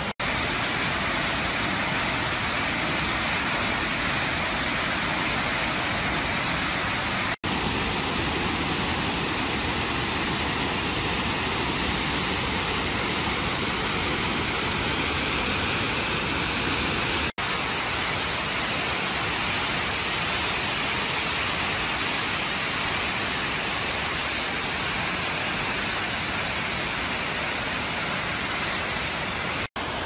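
Waterfall rushing steadily, a dense even noise of falling water, cut off for an instant three times.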